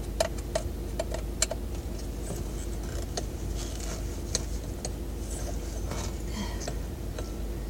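Light metallic clicks and clinks from handling the brass parts of a ceiling fan's light kit, several close together in the first second and a half, then only a few faint ticks. Underneath is a steady low hum from the car's idling engine and heater.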